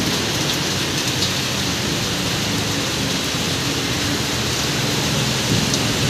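Heavy rain pouring steadily onto a waterlogged street and the surfaces around it.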